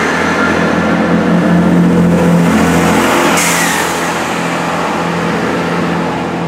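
Great Western Railway Class 165 diesel multiple unit pulling out of the platform, its underfloor diesel engines running under power with a steady hum. A rising whine and a brief hiss come about three and a half seconds in, and the sound eases slightly as the train draws away.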